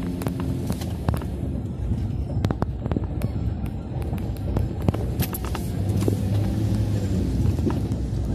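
Vehicle driving over a rough dirt track, heard from inside the cab: steady engine and road rumble with frequent sharp knocks and rattles throughout.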